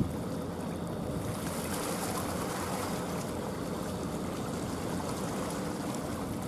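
Steady waterside ambience: an even rushing noise of moving water, with no distinct events.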